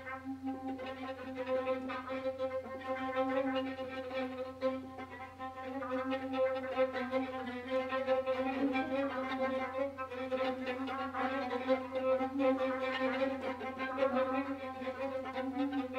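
Orchestra of separately recorded players, violins to the fore, playing a quasi-synchronous piece: a held note and its octave sustain throughout while quick, loosely aligned higher figures pile up over them, busier from about six seconds in.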